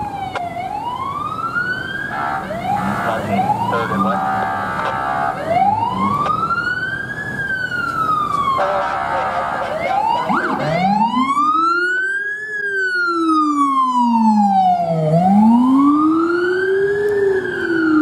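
Police sirens wailing as units pass, in slow rise-and-fall sweeps. In the first half there are steady air-horn blasts. From about ten seconds in, a Rumbler's low-pitched siren tone rises and falls along with the main wail.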